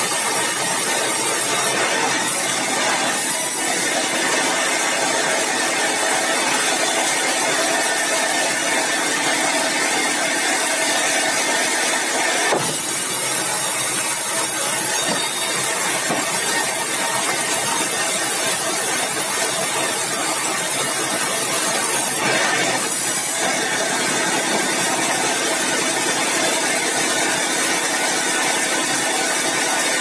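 Band sawmill running steadily and sawing a keruing timber beam lengthwise, a dense machine noise with a high hiss that dips briefly twice. A short knock about twelve seconds in.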